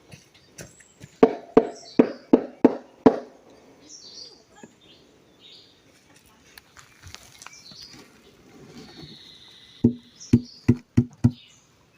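Sharp knocks in two quick runs of about five each, about three a second, as blocks of panela are knocked loose from their molds. Softer scattered rustles and taps fall between the two runs.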